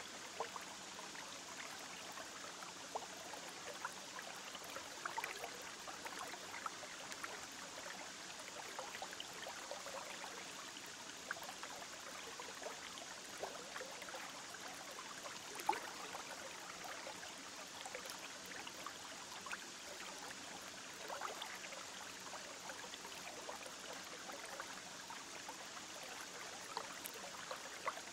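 Water in a goldfish aquarium trickling and bubbling: a steady low hiss with many small pops and blips scattered through it.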